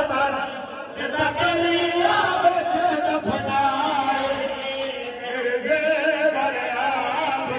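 A crowd of men's voices chanting together in a Shia mourning chant, many voices overlapping.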